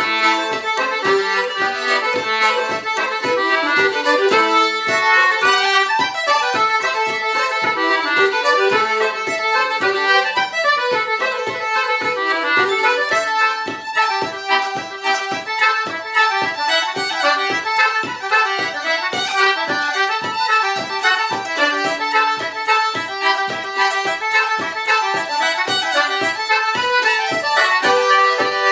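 Fiddle and concertina playing a traditional Irish reel together, a brisk, steady stream of quick melody notes.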